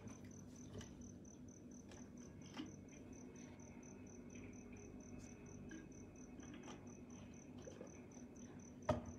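Faint, steady insect chirping in a quick, even pulse, with a single sharp knock near the end.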